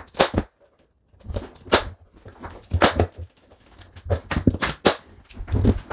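Pneumatic nail gun firing 1.5-inch nails through small wooden spacer blocks into wall studs: a string of sharp shots at uneven spacing.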